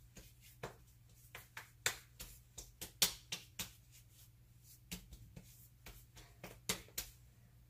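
Hands patting aftershave onto the face: a run of quick, irregular slaps of palms on skin, ending about seven seconds in.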